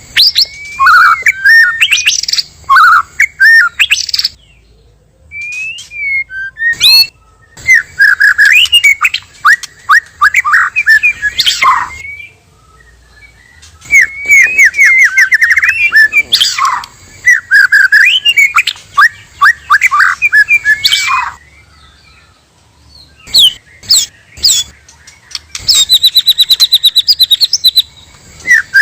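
White-rumped shama singing: loud bursts of varied whistled phrases and trills, broken by short pauses. Near the end comes a fast, even string of repeated high notes.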